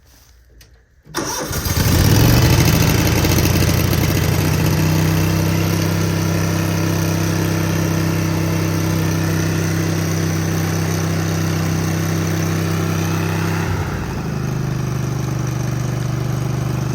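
Engine of an old engine-driven welder starting about a second in, picking up speed, then running steadily. Its note shifts about 14 seconds in.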